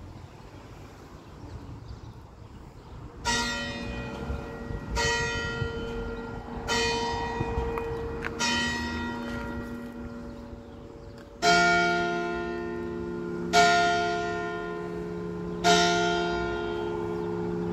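Church bells struck in the tower: four lighter strokes of one bell about 1.7 seconds apart, then about eleven seconds in a louder, deeper-toned bell begins tolling, three strokes about two seconds apart, each ringing on into the next. This is the Sterbestundenläuten, the death knell, rung on the tower's bell in g', cast in 1959 at St. Florian.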